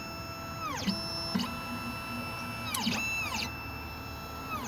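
Xhorse Dolphin key machine's stepper motors whining as they drive its axes through a calibration step. It makes a few separate moves, each rising in pitch, holding a steady tone and falling away as the motion stops.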